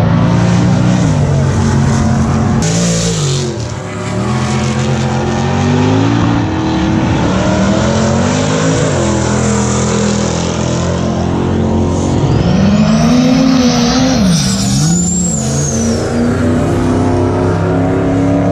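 Drag-race car engines running and revving, their pitch rising and falling again and again, with a high thin whine that sweeps up and back down about two-thirds of the way through.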